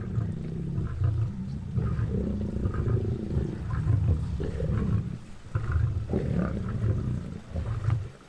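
Lions growling low and deep as they feed together on a zebra carcass, with brief lulls about five and eight seconds in.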